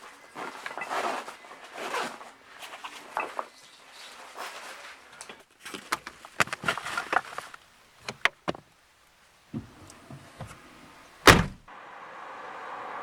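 Irregular rustling and handling noises with a few sharp clicks, then a single loud thud, followed by a steady noise that grows louder.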